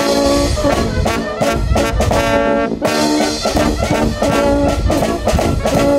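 Brass band music, sustained notes in several parts moving from chord to chord, starting suddenly as the speech before it ends.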